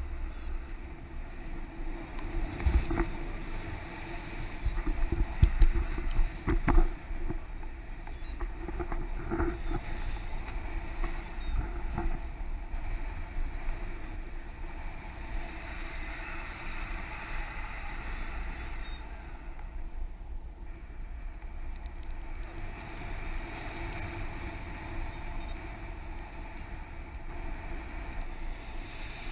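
Wind rushing over an action camera's microphone on a paraglider in flight: a steady rush with a few heavy buffeting thumps between about three and seven seconds in.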